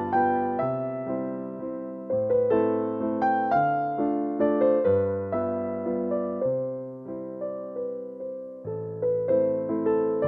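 Background music: a gentle electric piano tune, notes struck in a steady rhythm over changing bass notes.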